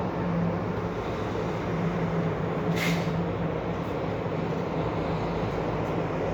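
Heavy diesel engine of concrete-pouring machinery (concrete pump or mixer truck) running steadily, with a short hiss of released air about three seconds in.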